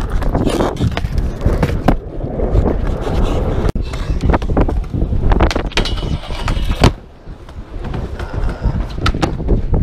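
Skateboard wheels rolling over a concrete skatepark with a steady rumble, broken by sharp clacks and knocks of the board. A scraping stretch ends in a loud smack about seven seconds in, after which the rolling drops quieter for a moment.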